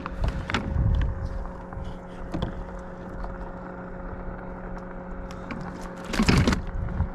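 Handling of a landing net and a freshly caught snook on a kayak: scattered knocks, clicks and rattles, with a short, louder rustling burst about six seconds in. A steady low hum runs underneath.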